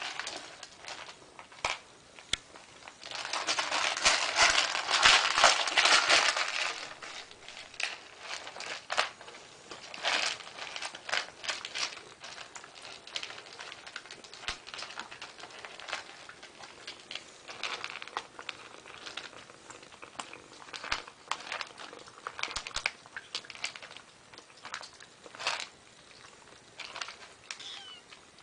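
Kittens eating dry kibble from a plastic dish: a run of crackly crunching and clicking as the pieces are chewed and pushed around the dish, densest and loudest from about three to six seconds in, then in scattered clicks.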